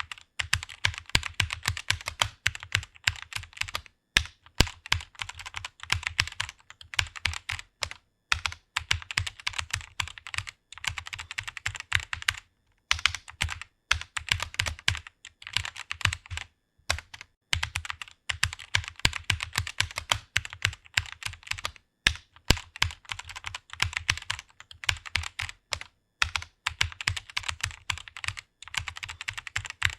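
Rapid typing on a computer keyboard, many keystrokes a second, with brief pauses every couple of seconds.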